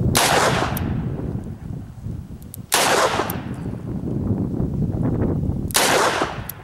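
Smith & Wesson 629 .44 Magnum revolver fired three times in double action, about three seconds apart. Each loud shot is followed by a long echo fading off the surroundings.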